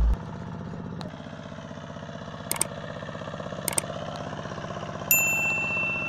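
Zubr 12 hp motor-tractor engine chugging steadily as it hauls a trailer loaded with firewood through mud, with two short clanks, one about two and a half seconds in and one a second later. About five seconds in, a bright electronic ding chime sounds over the engine.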